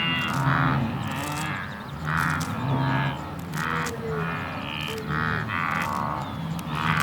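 Farm livestock calling over one another: a steady run of short, pitched calls, each about half a second long.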